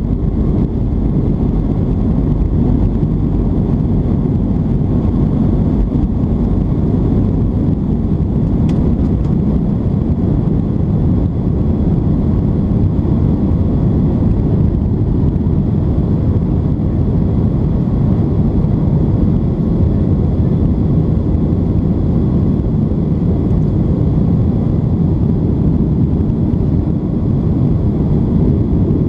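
Boeing 737-800's CFM56 turbofan engines at takeoff thrust, heard from inside the cabin: a loud, steady, deep roar with airflow through the end of the takeoff roll and the initial climb.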